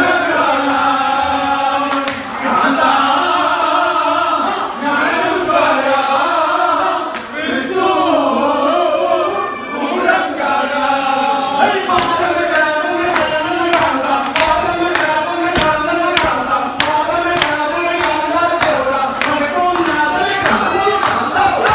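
A group of men singing loudly together in unison, a lively chanted song. About halfway through, sharp regular beats join in, about two a second.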